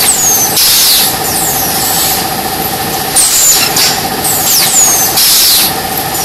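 Jumbo bag fabric cutting machine running: a steady, slightly pulsing hum, with high hissing three times and high squeaks that fall in pitch.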